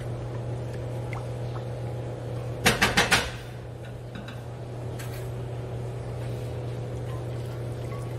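Milky sauce being stirred with a silicone spatula in a stainless steel saucepan, over a steady low hum. About two and a half seconds in come four quick, sharp knocks close together, with a fainter single knock a couple of seconds later.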